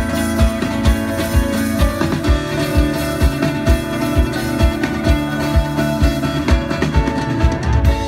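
Live band music: several acoustic guitars playing over a steady low beat, a little over two beats a second.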